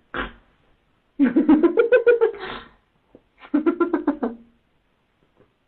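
A sleeping man snoring: two loud rattling snores, the first about a second and a half long and starting about a second in, the second about a second long.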